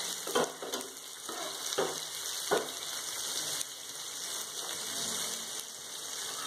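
Sliced onions, mustard seeds, urad dal and curry leaves sizzling steadily in oil in a metal kadai. A metal spoon scrapes and knocks against the pan several times in the first two and a half seconds as the mix is stirred.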